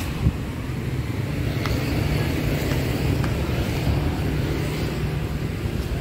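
Steady low outdoor rumble of road traffic and wind on the microphone, with a single sharp knock just after the start.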